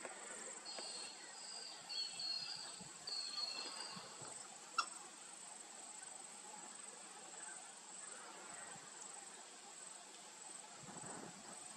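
Steady, faint, high-pitched insect chirring, typical of crickets, with a few short high notes about one to four seconds in and a single soft click near five seconds.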